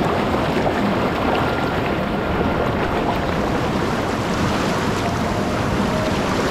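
River rapids rushing over rocks, heard with the microphone just above the water surface: a loud, steady rush of white water.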